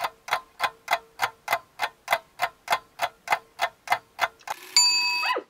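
Clock-ticking sound effect: a quick, even tick-tock of about three and a half ticks a second, then a short burst of noisy ringing near the end.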